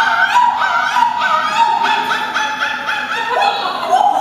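A woman's high voice warbling in held, operatic-sounding notes that step up and down every fraction of a second, played from a film soundtrack through the hall's speakers.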